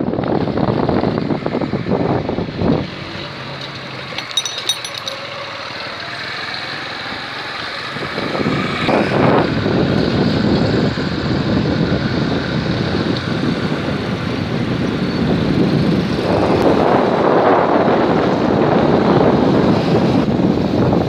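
Road and wind noise of a vehicle driving along a city road, heard from on board, with traffic going by. The noise eases off a few seconds in and swells louder near the end.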